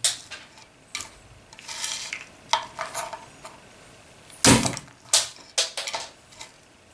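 A mail-and-steel-plate armoured gauntlet slams down on a walnut on a wooden board about four and a half seconds in, cracking the shell, with the chain mail jingling just after. Before the blow come smaller clicks and crackles of broken shell pieces.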